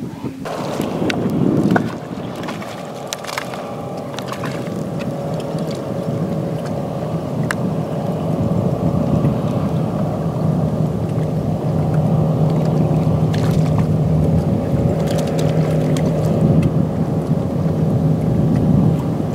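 A boat motor running with a steady hum, gradually getting louder, with a few short clicks and knocks in between.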